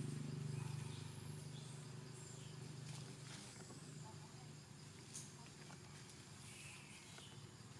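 Faint animal calls, a few short high chirps, over quiet forest ambience. A low steady hum fades away over the first couple of seconds, and there are a few light ticks.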